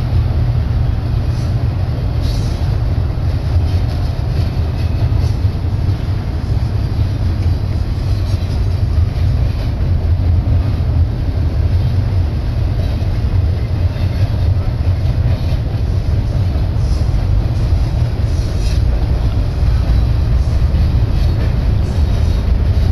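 Double-stack container train's cars rolling past close by, a steady low rumble of steel wheels on rail.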